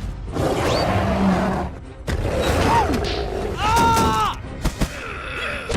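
Cartoon sound effects: long noisy surges like crashes or rushes over music, a short pitched cry from a character about four seconds in, and two sharp clicks shortly after.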